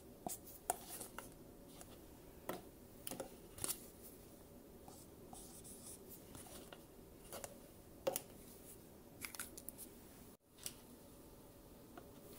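Faint handling of thin clear plastic cups, with scattered light clicks and crinkles as the cups are pulled apart and moved, and a felt-tip marker writing on a cup's plastic side. Near the end a cup is set down on a digital kitchen scale.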